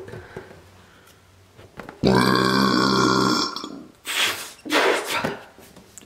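A woman's big burp, one long low belch lasting about a second and a half, starting about two seconds in. Two short breathy gusts of air follow.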